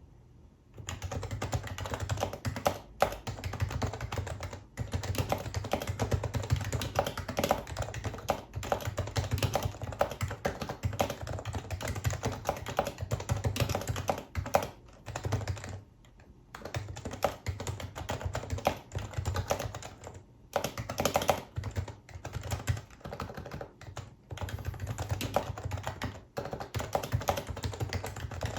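Steady fast typing on a Happy Hacking Keyboard Professional HYBRID Type-S, whose electrostatic capacitive (Topre) key switches are the dampened Type-S kind. Dense keystrokes start about a second in and run in long runs, broken by a few short pauses, the longest about halfway through.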